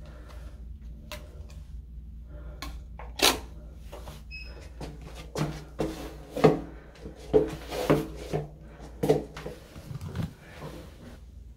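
Handling clicks, knocks and thumps as a key card goes into a wall card-key power slot and the room is moved through. There is a sharp click about three seconds in, a short electronic beep about a second later, and a run of louder thumps in the middle.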